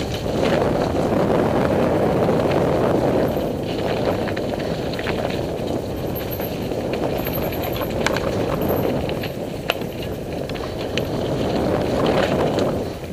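Mountain bike rolling along a dirt singletrack trail: a steady rush of tyre and wind noise that swells and eases, with scattered clicks and rattles from the bike over bumps.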